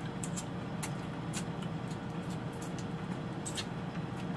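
Scattered small clicks and smacks of people eating crabs by hand, picking at the shells and sucking the legs, over a steady low hum.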